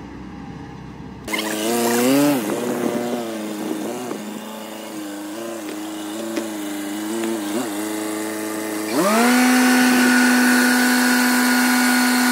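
Small dump truck's engine starts up about a second in and runs with a wavering pitch, then about nine seconds in rises to a steady, louder, higher pitch held for several seconds as the hydraulic tipper raises the loaded bed.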